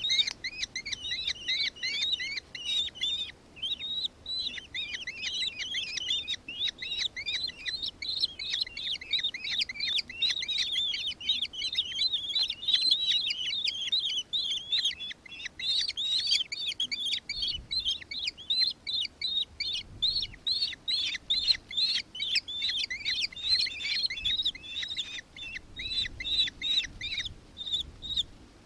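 Nankeen kestrel giving its shrill, chattering call: a rapid, near-continuous series of short, high-pitched repeated notes, broken by brief pauses a few seconds in and about halfway through.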